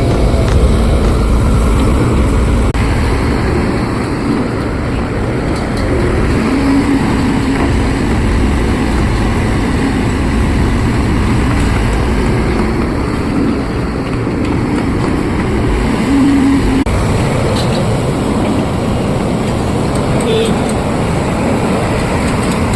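Volvo 210 excavator's diesel engine running steadily under a low, even rumble.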